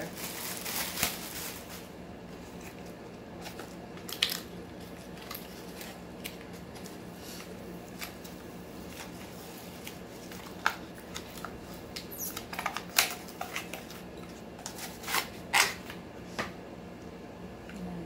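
Clear plastic packaging bag crinkling as a vacuum attachment is pulled out of it, then scattered rustles and light plastic clicks as the vacuum's plastic attachments are handled and fitted together.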